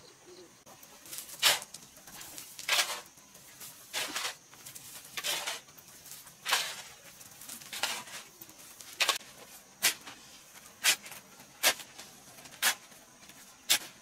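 Metal shovel digging and scraping into a pile of soil and gravel, one gritty stroke about every second. In the later half the strokes turn shorter and sharper, like the blade striking stones.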